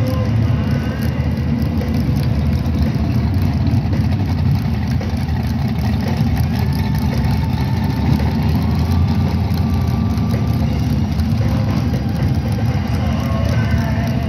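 A drag-racing Chevrolet Monte Carlo and pickup truck idling side by side at the starting line, their engines making a loud, steady, deep rumble with light revving while they stage.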